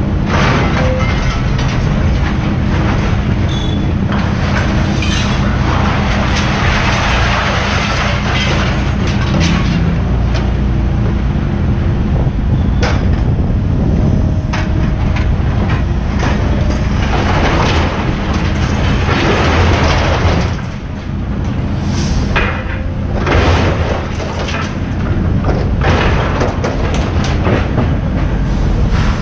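Heavy machinery engine running steadily while scrap metal clanks and crashes irregularly as a material handler's grapple picks scrap out of a trailer.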